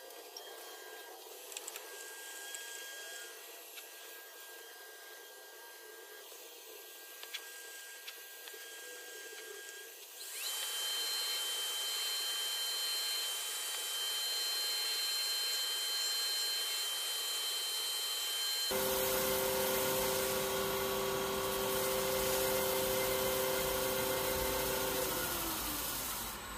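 Wood lathe running with a walnut bowl spinning on it while a cloth is held to the surface. A steady motor whine jumps up in level abruptly about 10 and 19 seconds in. Near the end the whine falls in pitch as the lathe slows down.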